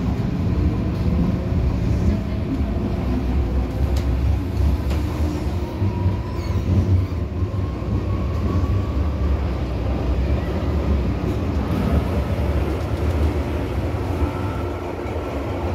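MTR Kwun Tong Line M-Train (Metro Cammell electric multiple unit) accelerating away from a station, heard from inside the car. A steady low rumble of wheels on rail runs throughout, with a whine that rises slowly in pitch over about ten seconds as the train gathers speed.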